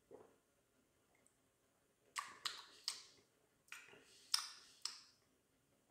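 Mouth sounds of a man tasting a sip of beer: lip smacks and tongue clicks. There are about six short, sharp clicks in two groups of three, starting about two seconds in.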